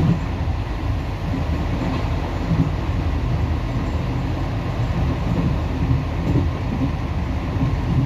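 Passenger train in motion, a steady low rumble of wheels on the track heard from inside the carriage.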